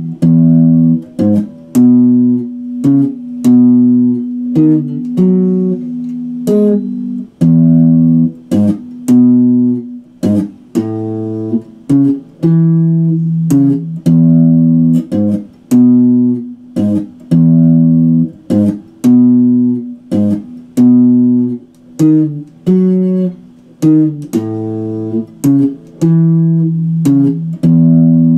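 Ibanez electric guitar playing a repeating riff of picked low notes, each with a sharp attack, and the phrase coming round about every two seconds.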